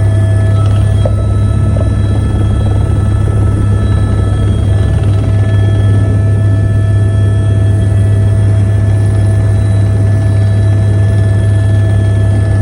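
Helicopter in flight: a loud, steady drone of engine and rotor with a steady high whine over it.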